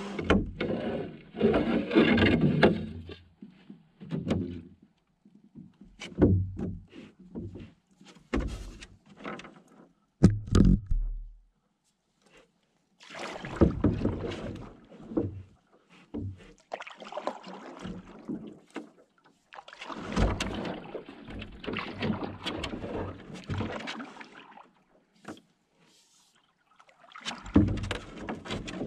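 A canoe being paddled: irregular swishing and splashing of paddle strokes in the water, with several sharp knocks on the hull.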